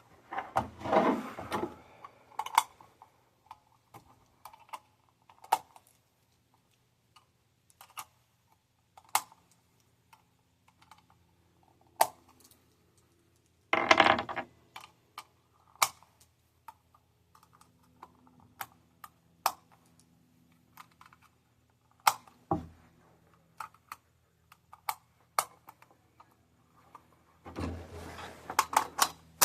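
Cartridges being handled and pressed into a rifle magazine: a string of small, irregular metallic clicks and clinks, with louder clatters about a second in and again about halfway.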